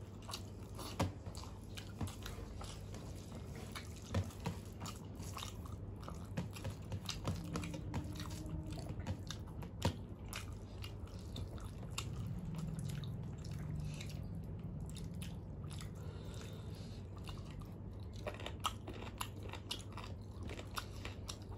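People eating rice and curry by hand: chewing and mouth sounds, with many small scattered clicks.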